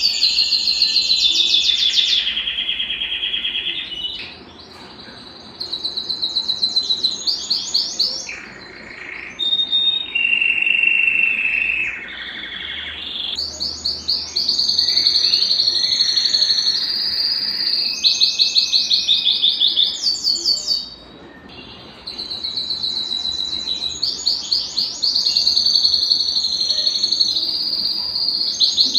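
Domestic canary singing: long phrases of rapid trills and rolls, with brief pauses about four, eight and twenty-one seconds in.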